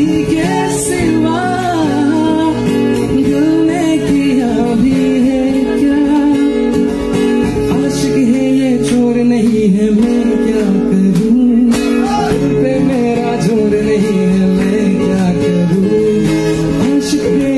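A man singing a slow melody while playing an acoustic guitar, performed live through a microphone.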